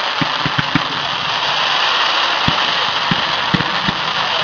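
Fireworks going off: a steady dense crackling hiss, with several dull low thumps of bursts, a cluster of them in the first second and more towards the end.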